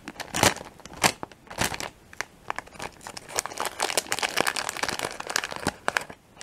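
Crunching of candy-coated M&M's being chewed close to the microphone, in regular bites about every half second. From about two and a half seconds in, the plastic M&M's wrapper is crinkled and rustled between the fingers in a dense crackle that stops abruptly near the end.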